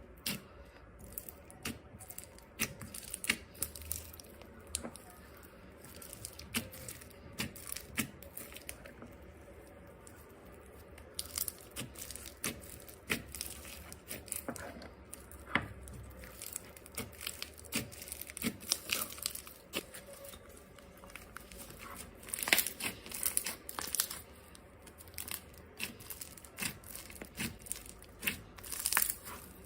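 Slime being worked by hand, giving a string of irregular sharp crackling clicks and pops, with thicker clusters a little before the end.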